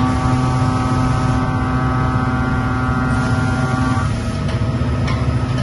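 Mazak FH-4800 horizontal machining center cutting a part under flood coolant: a steady machine hum with coolant spray hiss and a set of steady pitched spindle tones, which drop out about four seconds in while the hum runs on.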